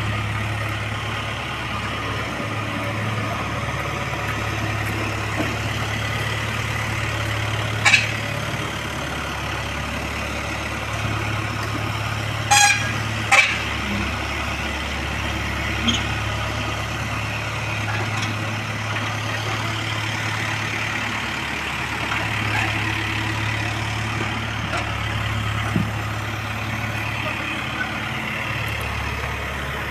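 Diesel engine of a Case 851EX backhoe loader running steadily as it pulls a towable concrete mixer hooked to its bucket. A few sharp knocks cut in, once about eight seconds in and twice around thirteen seconds.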